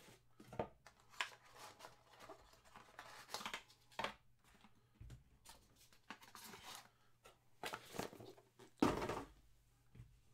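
Cardboard trading-card box being opened and handled by hand: scattered rustles, scrapes and light taps, with a louder rustling scrape about nine seconds in.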